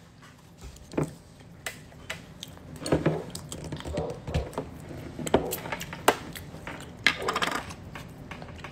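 Close-up eating sounds: scattered mouth clicks and smacks with light knocks against the plate and table, and a few short voice sounds in between.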